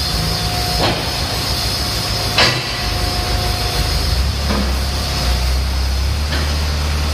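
JCB loader's diesel engine running steadily as its forks push a heavy metal lathe, with several sharp knocks, the loudest about two and a half seconds in. The engine's low note shifts about four seconds in.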